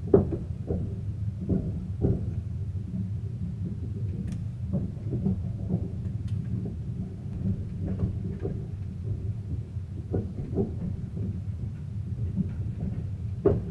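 Caledonian Sleeper train moving off, heard from inside a sleeper cabin: a steady low rumble with irregular knocks and clunks from the running gear.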